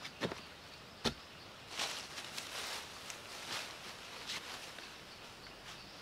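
Two sharp knocks in the first second or so, then irregular rustling of leafy branches and soil being handled.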